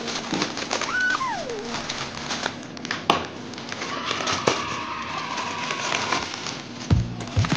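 Plastic courier mailer crinkling and rustling as it is snipped with scissors and pulled open by hand, with a couple of sharp clicks. A cat meows once about a second in, a call that rises, holds and slides down.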